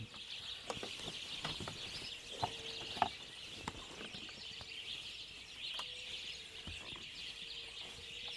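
Dense, steady high-pitched chirping of birds, with scattered faint clicks and knocks.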